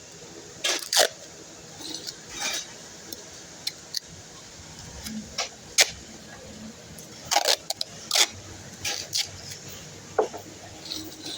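Scattered clicks, light knocks and short scrapes at irregular intervals over a faint steady background hum, with no saw running; the loudest strikes come about half a second to a second in, near six seconds, and around eight seconds.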